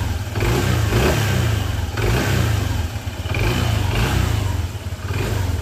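Honda ADV 160 scooter's single-cylinder engine revved in repeated throttle blips, about four rises and falls. It is freshly overhauled and runs without its former knocking, sounding like a brand-new engine.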